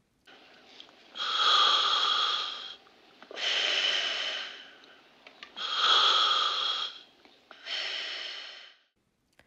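Breathing through a scuba regulator, heard as if from inside the diver's mask: four long breaths, in and out, each about a second and a half, with short pauses between.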